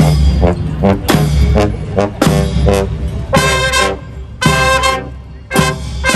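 Brass band playing: loud drum beats under short horn phrases, then three long held horn chords with short breaks between them in the second half.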